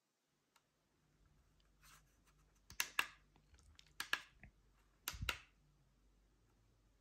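Plastic buttons on a trail camera being pressed, each press a sharp double click. There are three of them about a second apart, in the middle of the stretch, with a faint low hum underneath.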